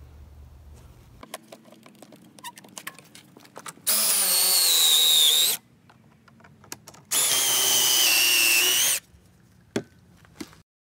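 Cordless drill with a stepped bit boring pocket holes through a pocket-hole jig into 2x4 lumber: two bursts of drilling, each about a second and a half long, with a high motor whine. Small clicks and knocks of handling the jig and clamp come before and between them.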